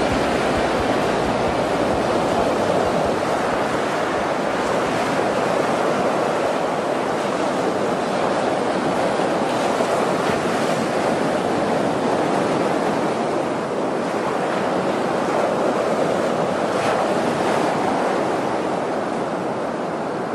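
A steady, even rushing noise like surf or wind, with no tune or beat: the ambient noise outro at the end of a folk/doom metal recording.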